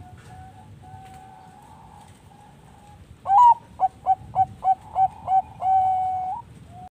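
Zebra doves (perkutut) cooing, of the Thai-bred 'Bangkok' line kept for song. Faint coos at first, then about three seconds in a loud rising opening note, a quick run of about seven short coos, and one long held closing coo.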